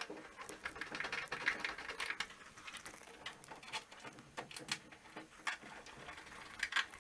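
Faint, irregular clicks, taps and rustling of hands handling the underside of a wall-mounted boiler: its fittings, cover and wiring.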